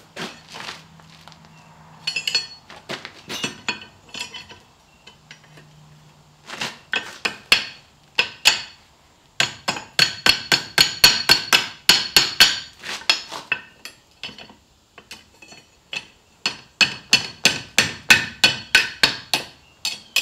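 Hand hammer striking hot, thin steel bar stock against a steel bending jig on an anvil, forming a bend around the jig's pins, each blow ringing metallically. A few scattered blows come first, then two runs of quick strikes, about three to four a second: one about halfway through and one near the end.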